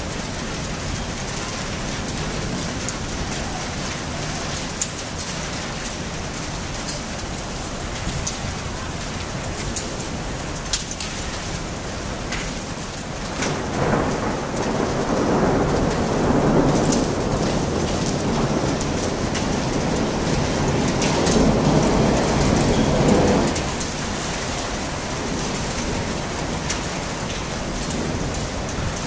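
Thunderstorm: rain falling steadily, with many sharp ticks of drops striking surfaces. A long rumble of thunder builds about fourteen seconds in and dies away about ten seconds later.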